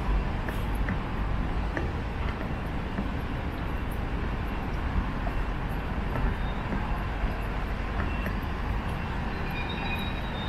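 Steady rumble of street traffic on a wet road, with a delivery truck driving close by in the next lane.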